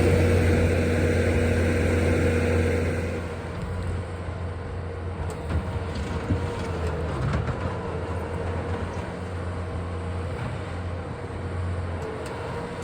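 Bobcat skid steer engine running steadily with a low drone, easing off and getting quieter about three seconds in, with light rattles and clanks from the machine after that.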